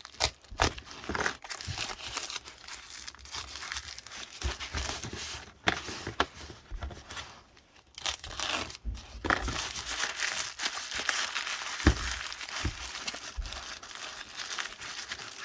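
Plastic packaging being handled, crinkled and torn open by hand, with irregular rustling, crackles and scattered small clicks.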